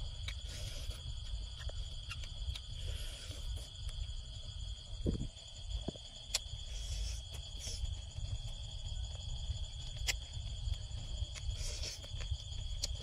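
Steady high-pitched trilling of crickets runs throughout over a low rumble. Scattered sharp crunches and mouth sounds come from biting and chewing grilled frog off bamboo skewers, the loudest a little after five seconds and again about ten seconds in.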